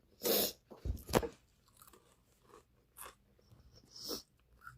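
Someone chewing and crunching food close to the microphone during a meal, in a few short bursts with the loudest near the start and about a second in.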